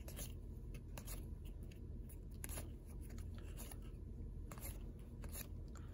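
Topps baseball cards being flipped through by hand: irregular soft clicks and slides of card stock against card stock, a dozen or so, over a low steady hum.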